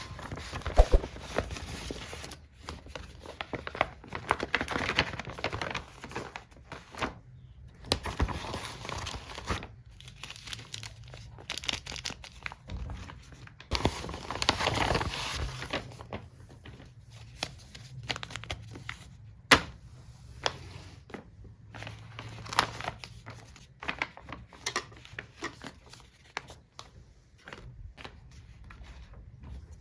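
Packaging crinkling and tearing as stationery is unboxed by hand, with frequent small clicks and taps of items being handled.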